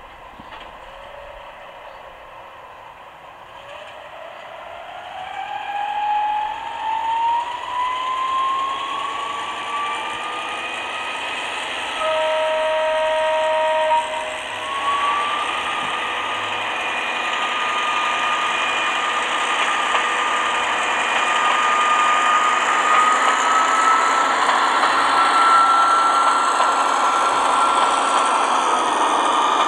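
Gauge 1 model Köf II shunting locomotive running on garden track: a whine rising in pitch as it picks up speed, then holding steady and growing louder, with rail hiss, as it comes closer. About halfway through, a horn sounds for about two seconds.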